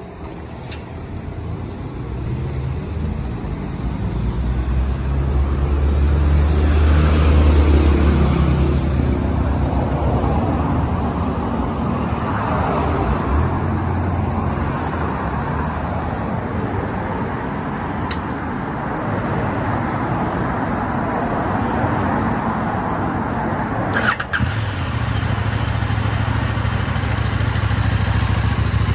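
KTM 890 Duke R's parallel-twin engine running at idle. It grows louder over the first several seconds, then runs steadily, with a sharp click about three quarters of the way through.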